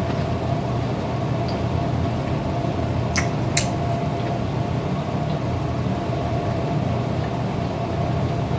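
Steady low mechanical hum with a constant higher tone running through it, and two short clicks a little after three seconds in.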